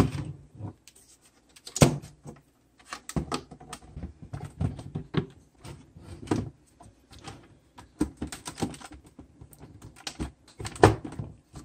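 Bandai S.H.Figuarts Hall of Armor plastic display units being handled and slotted together by their attachment pieces: an irregular run of clicks, knocks and scrapes, the sharpest about two seconds in and again near the end.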